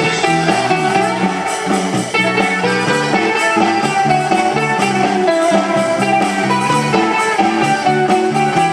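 Live band playing a rock ballad instrumental: electric guitars leading over steady low notes and an electronic drum kit keeping the beat.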